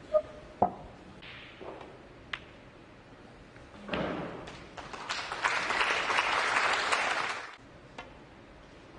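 Two sharp clicks of snooker balls striking each other, half a second apart, near the start. Then audience applause rises about four seconds in, holds for a few seconds and stops abruptly.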